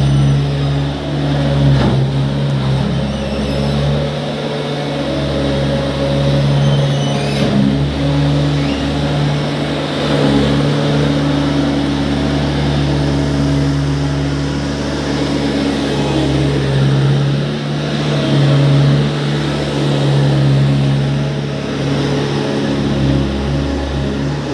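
Skid steer loader's engine running steadily, with small changes in engine speed as it works.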